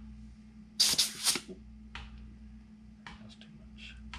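Handling of a hand rivet squeezer while its rivet sets are changed: a short, rough burst of metal handling noise about a second in, then a few light clicks. A faint steady hum runs underneath.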